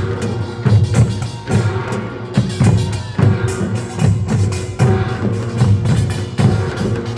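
Korean nongak farmers' percussion band playing: drums beat a steady rhythm of about two strokes a second while gongs ring on over them.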